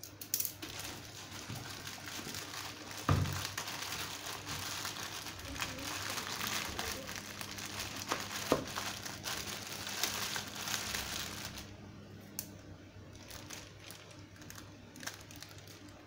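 Clear plastic wrapping bag crinkling and rustling as it is handled and pulled around a new vacuum cleaner, with a thump about three seconds in. The crinkling eases off for the last few seconds, leaving a few light crackles.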